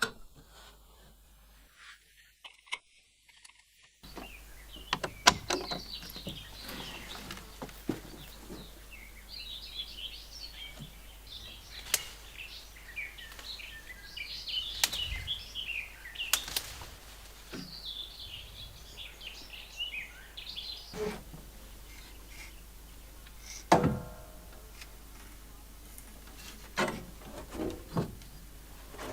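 Birds chirping, starting about four seconds in, with scattered sharp clicks and knocks. Near the end comes a louder knock with a short ring.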